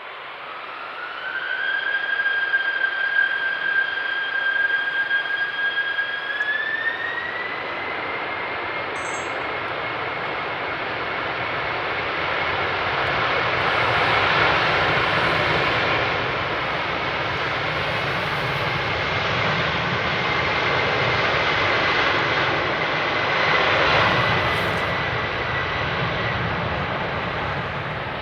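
Boeing 747's four jet engines spooling up for takeoff. A whine rises about a second in and holds, then climbs again around six seconds in to a steady higher pitch as the engines reach takeoff thrust, over a loud, dense jet noise.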